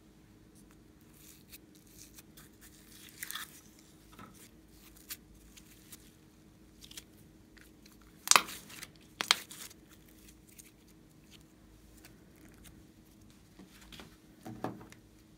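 Glossy slime being pressed by hand: scattered soft sticky clicks, then two loud wet crackles about a second apart as a palm presses into it. A short knock comes near the end.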